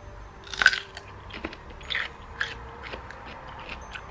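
A raw red radish bitten with one loud crunch about half a second in, then chewed with smaller crunches.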